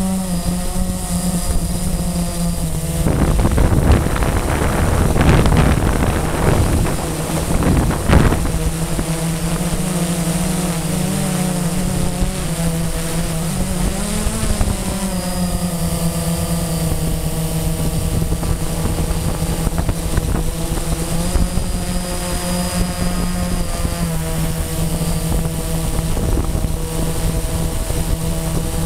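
Blade 350 QX quadcopter's electric motors and propellers humming steadily, the pitch shifting slightly as the throttle changes. For a few seconds near the start, wind gusts buffet the microphone, ending with a short knock.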